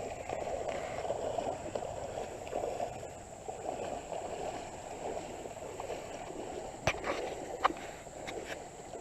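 Rubber boots wading through shallow water, with water sloshing and gurgling around the legs. The sloshing eases off partway through, and a couple of sharp knocks come near the end.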